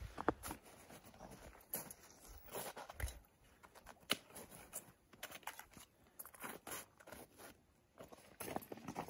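Irregular crunching footsteps, sparse and faint for a stretch, then closer together and louder again near the end.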